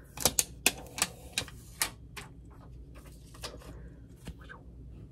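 A hard plastic Casetify phone case clicking and snapping as it is pressed and fitted onto a phone. Several sharp clicks come in the first two seconds, then softer, scattered ticks.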